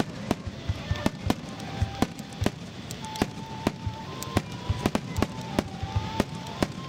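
Aerial firework shells bursting over and over in an uneven string of sharp bangs, about three or four a second.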